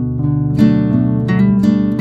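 Background music: acoustic guitar, plucked notes and strums.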